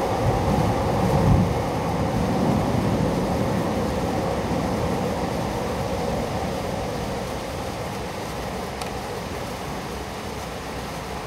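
Torrential cloudburst rain making a steady rush over the city. A low rumble swells and peaks a little over a second in, then the whole sound slowly eases.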